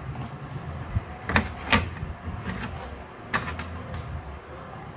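Clicks and knocks of an LED TV main board and its wire connectors being handled and plugged in, three sharp clicks in all: two close together about a second and a half in, one more near the middle, over a low steady hum.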